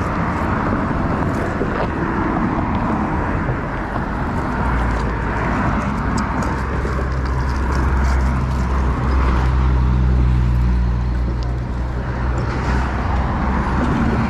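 A motor vehicle's engine hum close by: a low steady drone that starts about four seconds in and stops about twelve seconds in, over a constant rush of background noise.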